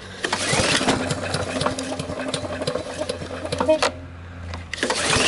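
Briggs & Stratton engine on a Victa Super Mulcher lawn mower being pull-started: a busy mechanical rattle for about three and a half seconds, a short lull, then a second go near the end. The engine does not start and keep running, a stubborn no-start that in the end needed starting fluid sprayed into the carburettor.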